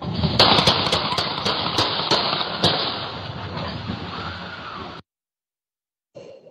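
A rapid string of about ten gunshots in the first three seconds, heard through a doorbell camera's microphone over loud noise. The sound cuts off suddenly about five seconds in.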